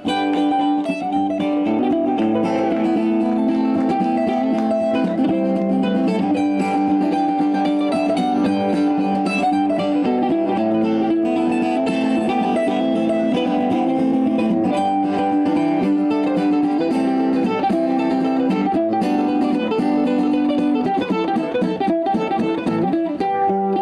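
A mandolin and a strummed acoustic guitar playing a bluegrass tune together at a steady, even level.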